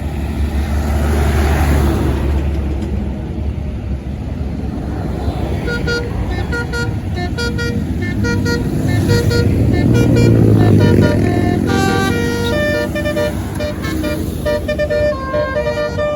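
Tour bus with a basuri musical horn: engine rumble as it passes, then from about five seconds in the horn plays a tune of short notes that jump from pitch to pitch.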